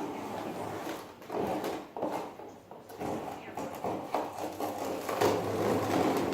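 Cardboard box and packaging of a TV being handled during unboxing: irregular scraping, rubbing and knocking with a few sharp clicks.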